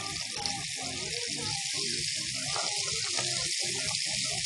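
Raw chicken fillet strips sizzling in hot oil in a non-stick frying pan, a steady hiss of frying, with background music underneath.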